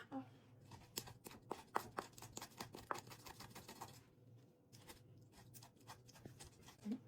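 Wooden pestle grinding pepper in a bowl: a quick run of faint scraping and knocking strokes for a few seconds, then fewer, quieter strokes.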